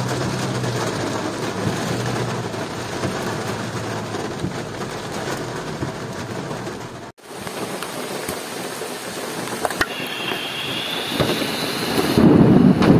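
Heavy rain drumming on a pickup truck's windscreen and roof, heard from inside the cab as a steady hiss. About seven seconds in it cuts to rain falling in the open, and near the end louder wind noise rumbles on the microphone.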